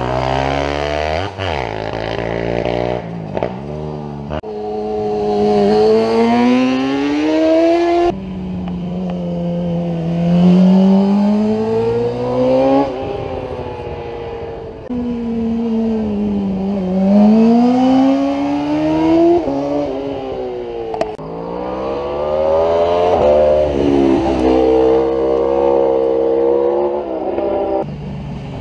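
Racing motorcycle and quad engines revving hard in a string of short cuts, one machine at a time. Each drops in pitch as it brakes and downshifts for a hairpin, then climbs again as it accelerates away up through the gears.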